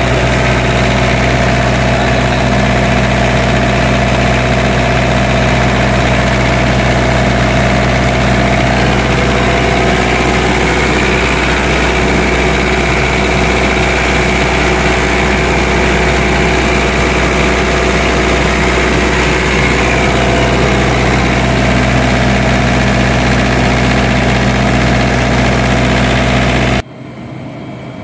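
Newly reconditioned Isuzu diesel engine of a generator set running steadily just after starting. Near the end it cuts off suddenly to a much fainter hum.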